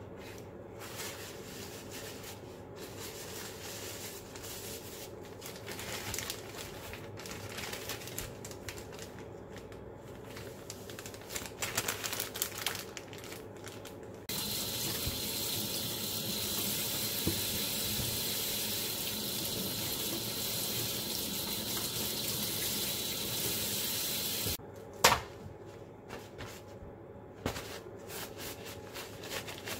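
Kitchen tap running into a sink as a steady stream for about ten seconds, switched on and off abruptly, with a sharp knock just after it stops. Before it come rustling paper and plastic and light knocks of kitchen items being handled.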